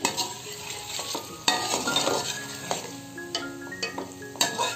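A perforated metal skimmer spoon stirring chicken pieces and wet tomato paste in a metal pot over a light sizzle, with several sharp clinks of the spoon against the pot.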